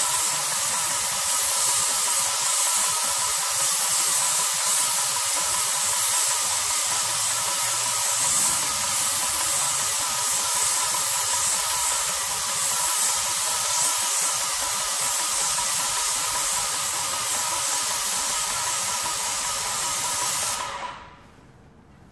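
Airless paint spray gun with a Wagner/Titan 517 HEA tip spraying paint: a loud, steady hiss with a faint steady tone in it, which cuts off suddenly near the end.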